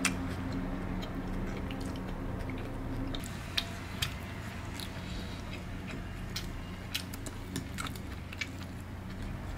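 Close-up mouth sounds of someone biting into and chewing a thin-skinned dumpling, with a few short, sharp clicks scattered through.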